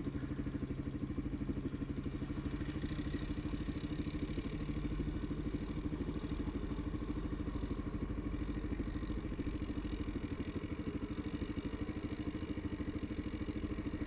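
ATV engine idling steadily, an even low pulsing that holds without revving.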